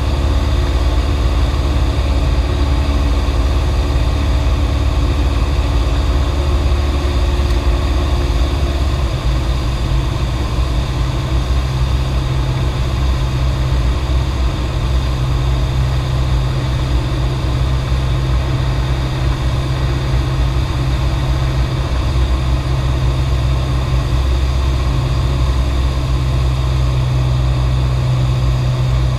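Cessna 172's piston engine and propeller running steadily in flight, heard inside the cabin as a loud, constant drone. Its tone changes about nine seconds in, then holds steady.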